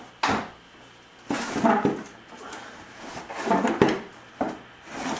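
Club Car golf cart's molded body being pulled and rocked on its frame, giving several irregular knocks and rattles, the sharpest a little before the end.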